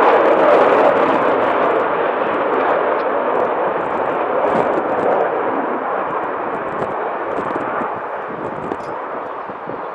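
Military fast jet flying past, its engine noise a broad, steady rush that slowly fades away over several seconds.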